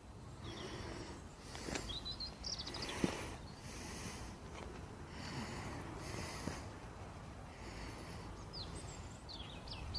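Small birds chirping in short bursts, with soft rustling that comes and goes about once a second, likely leaf mould being handled and spread, and a single sharp click about three seconds in.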